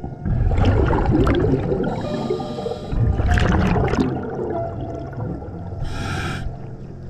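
Scuba diver breathing through a regulator underwater: a burst of exhaled bubbles about a quarter-second in and again about three seconds in, each followed by a short hiss of inhalation.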